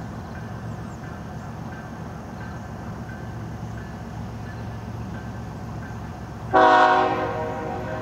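Diesel freight locomotive's air horn sounding one short blast about six and a half seconds in, several notes together, loudest at the start and then fading, over the steady low rumble of the approaching locomotive.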